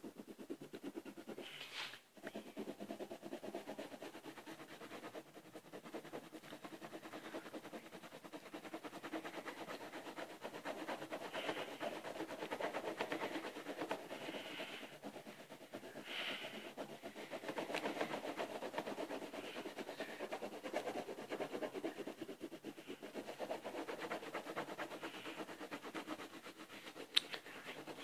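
Wax crayon scribbling on paper in rapid back-and-forth strokes while colouring in an area, a continuous scratchy rubbing with a brief pause about two seconds in and a sharp tick near the end.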